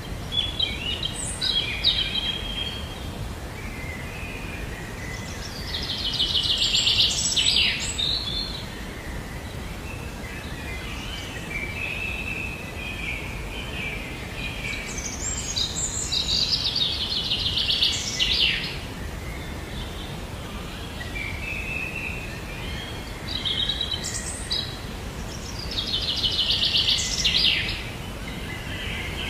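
A songbird singing, with softer chirps between three louder phrases that each end in a fast trill and come about every nine seconds. A steady low background noise runs underneath.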